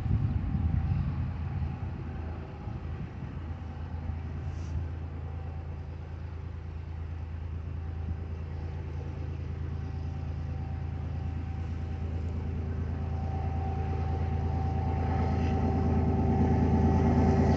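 Diesel locomotive engine of an approaching ballast train, a low steady drone that grows gradually louder.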